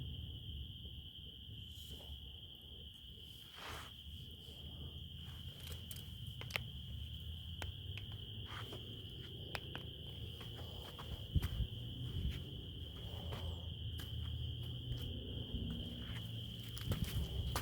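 Crickets trilling in one unbroken high tone, with the scattered crackles and pops of a campfire over a low rumble.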